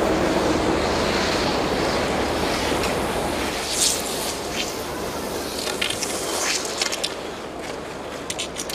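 Steady rushing outdoor noise, with short sharp scrapes and crunches of skis and poles on snow from about four seconds in.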